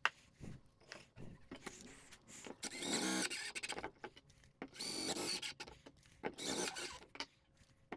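Cordless Milwaukee driver driving 1-inch drywall screws through a sanding pad into a 3D-printed plastic sander body. It runs in about three short bursts of motor whine, with clicks of handling between them.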